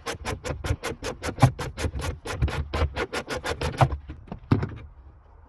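Background music with a fast, even beat of about six strokes a second, which cuts off about four seconds in.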